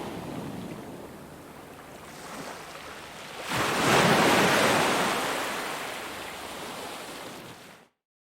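Ocean waves on a shore: a wave breaks about three and a half seconds in and washes out slowly, then the sound cuts off abruptly to dead silence near the end.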